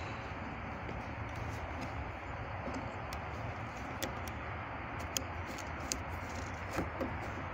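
Small metallic clicks and scrapes, one every second or so, from a metal tool worked inside the end of a metal awning pole to widen the hole for its spring button clip, over a steady background hiss.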